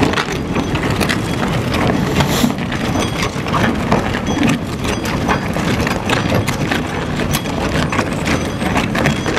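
Herrenknecht tunnel boring machine's cutting wheel grinding through rock just behind the shotcrete wall: a steady low rumble from inside the mountain with irregular cracking knocks, the sign that the machine is about to break through.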